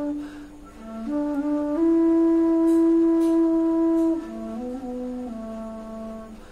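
D bass bansuri (bamboo transverse flute) playing a slow melody: a short note, a breath about half a second in, a long held note, then a step down to lower notes.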